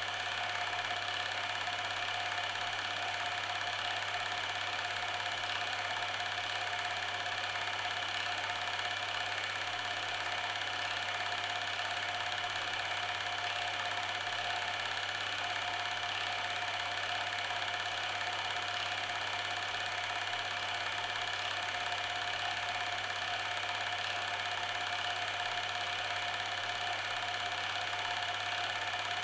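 A steady, unchanging mechanical running sound: a constant low hum with several fixed whines above it.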